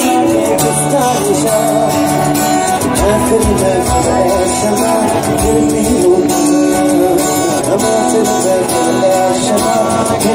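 Student vocalists singing a song medley, with instrumental accompaniment, at a steady level.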